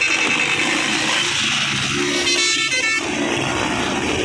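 Several small motorcycles running over sand, making a dense mixed engine noise. A brief horn-like toot sounds about two and a half seconds in.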